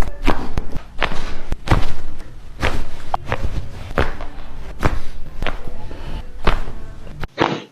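A run of sharp clicks and thuds, about two a second, over a low handling rumble, during a chiropractic neck manipulation: joints popping and hands working on the head and neck. The sound changes abruptly near the end.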